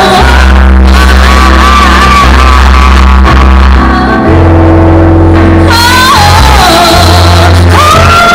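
A rock band playing live, loud and distorted through a camera's microphone. A singer holds a high, wavering vocal line over steady bass and keyboards; the voice drops out for a couple of seconds midway and comes back with falling slides.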